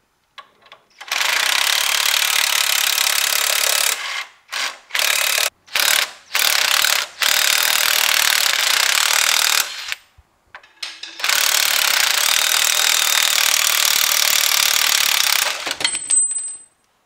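Cordless impact wrench hammering a nut loose at the top of a coilover strut. It runs in long bursts of a few seconds, with several short blips in between and a pause about ten seconds in.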